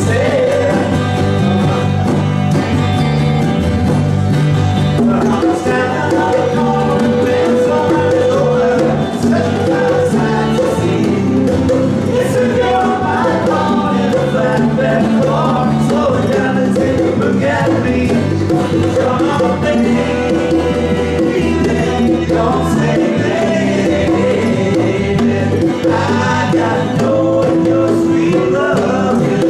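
A small band playing a song, with a voice singing over the instruments.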